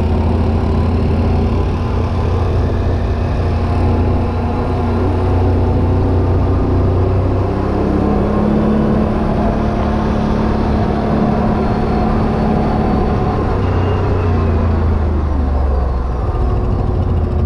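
ATV engine running steadily under way, its pitch shifting slightly up and down as the speed changes.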